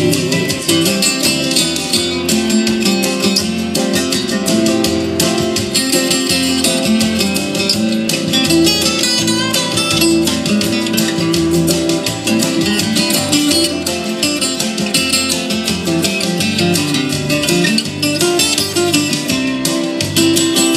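Acoustic guitar strummed steadily through an instrumental break between sung verses of a country song.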